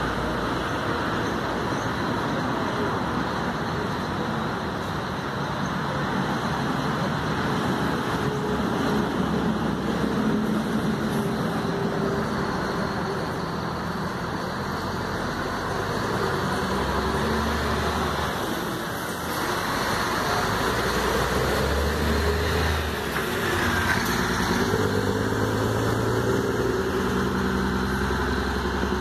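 Diesel engine of a Scania K124 coach running, then pulling away and accelerating, its note climbing and dipping a few times from about halfway as it moves off.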